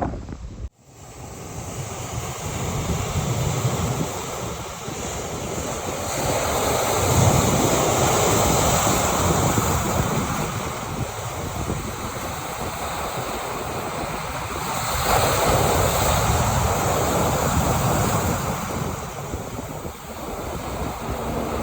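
Big ocean waves breaking as rough surf, with wind buffeting the microphone. The roar swells and fades, peaking twice, about a third of the way in and again past two thirds, after a brief cut to silence just under a second in.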